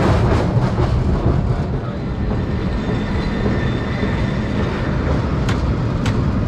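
1896 Market Street Railway streetcar No. 578 running along the rails with a steady rumble of wheels on track. A faint high whine comes in partway through, and two sharp clicks follow near the end.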